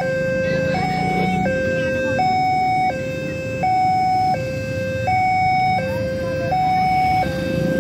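Railway level-crossing warning alarm sounding a two-tone signal, switching between a lower and a higher tone about every three-quarters of a second. It warns that the crossing gate is about to close for an approaching train.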